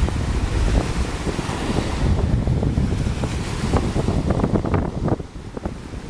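Small waves breaking and washing up onto a sandy beach, with wind buffeting the microphone and a rumble that dips briefly about five seconds in.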